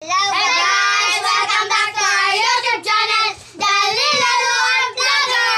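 Young children singing together in high voices, with short breaks about three and a half seconds in and again near five seconds.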